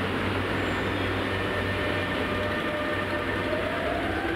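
Shanghai Metro Line 2 electric train setting off from a station platform: a steady low hum while it stands, then from about three seconds in a rising whine from its traction motors as it starts to move and gathers speed.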